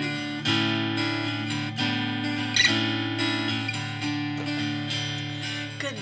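Instrumental music played on strummed acoustic guitar.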